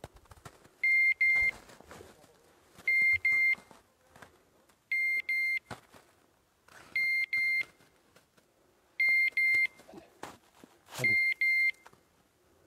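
Hunting dog's beeper collar in point mode: a pair of short, high beeps about every two seconds, the signal that the dog has stopped moving and is holding a point.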